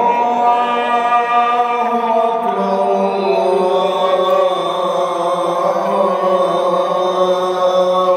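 A single voice chanting long, drawn-out melodic notes without pause, moving to a new held pitch about two and a half seconds in.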